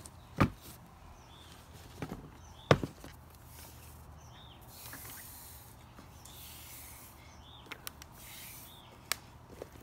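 A hiking boot being handled on a plastic workbench: a few sharp knocks as it is set down and moved, the loudest near three seconds in, then a soft rubbing hiss twice as the bootlace is drawn through the eyelets.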